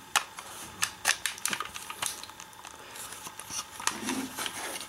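Hard plastic Drake Zecter toy gun being handled and its parts slid together: a scatter of small irregular clicks and rattles.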